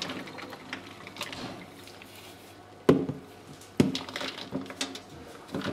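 Plastic kitchenware knocking in a stainless steel sink as soaked beans, lentils and barley are tipped from a plastic colander into a plastic microwave steamer. Quiet handling at first, then a few sharp knocks, the loudest about three seconds in.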